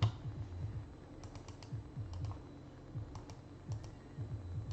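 Typing on a computer keyboard: irregular, scattered keystrokes.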